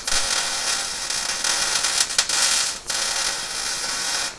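A power cutting tool running steadily, a harsh, rasping noise with a few short dips, that stops right at the end.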